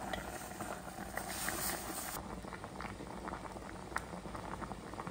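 Pot of jackfruit and red chickpea curry boiling in a steel pot, bubbling steadily with many small pops as it comes to the boil.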